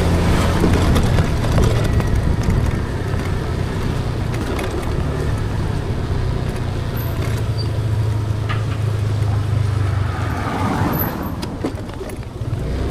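Car engine and road noise while driving: a steady low hum with tyre noise, easing off briefly near the end.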